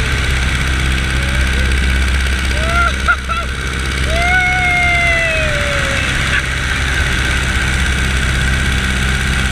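Biplane's piston engine running steadily in flight, with loud wind rush over the wing. A few sliding, wavering tones rise and fall over it, around three seconds in and again between four and six seconds.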